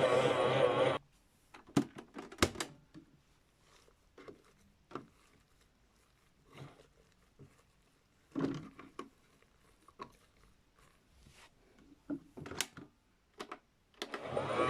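A toy washing machine's electronic running sound stops about a second in. Then come scattered light clicks and knocks of the plastic toy being handled, until its sound starts again near the end.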